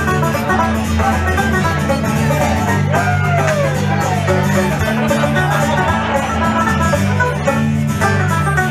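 Folk music played on plucked string instruments over a steady bass line, with a few sliding notes about three seconds in.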